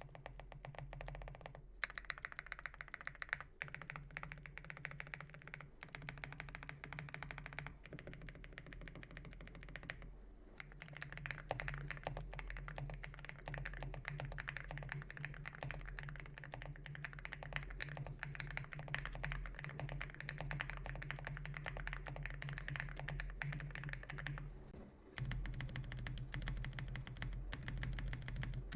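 Typing on a mechanical keyboard fitted with alumina ceramic keycaps: a fast, continuous run of keystroke clacks, with short breaks about ten seconds in and a few seconds before the end.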